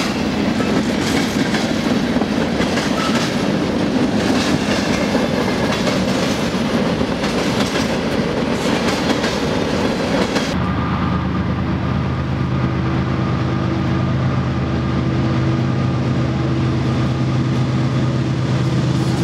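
Covered hopper cars rolling across a steel girder bridge, wheels clattering over the rail joints. About halfway through, this gives way abruptly to the steady low drone of a BNSF diesel locomotive's engine.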